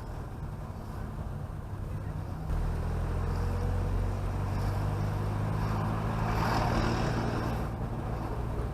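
Chevrolet Chevette driving on the road, its engine and road noise making a steady low drone. The drone gets louder about two and a half seconds in, and a broader rush of noise swells around six to seven seconds.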